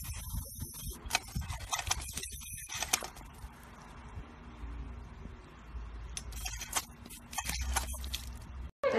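Water spurting and splashing from a paw-operated step-on dog water fountain as a dog presses the pedal and drinks at the spout, in crackly bursts during the first three seconds and again briefly near the end.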